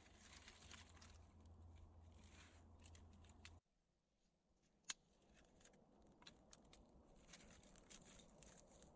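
Faint rustling and light snapping of dry twigs being handled. The sound then drops away abruptly, followed by a single sharp snap and faint, irregular crackling from thin kindling burning.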